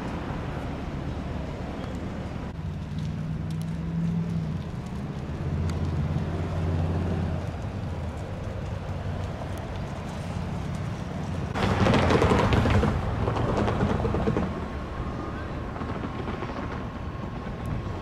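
Construction machinery engine running with a steady low hum whose pitch shifts up and down for a few seconds. About twelve seconds in, a louder rushing burst lasts about a second and a half. A faint steady whine follows near the end.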